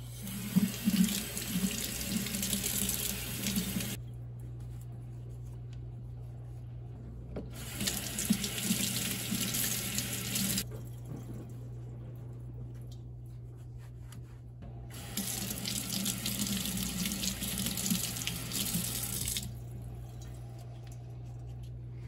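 Kitchen faucet running into a stainless steel sink in three spells of a few seconds each, turned off in between.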